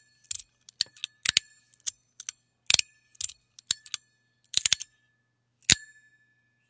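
Sound Emperor tuning fork fidget slider snapped back and forth: the stainless steel plates click sharply against the magnets about twice a second, and many clicks set the tuning fork inside ringing one clear, bell-like tone that dies away within about half a second.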